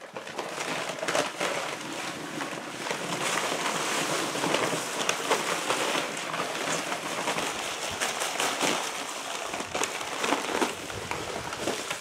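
Dry concrete mix pouring from a paper sack into a post hole: a steady gritty hiss speckled with many small ticks of grit and gravel.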